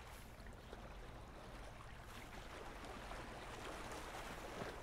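Faint lakeshore ambience: a soft, even wash of noise, like small water lapping on a rocky shore.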